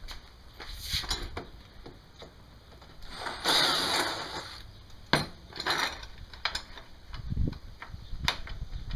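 Hand tools and metal latch parts being handled during a latch install: scattered clinks and knocks. About three and a half seconds in comes a louder rushing burst lasting about a second, with a sharp knock soon after.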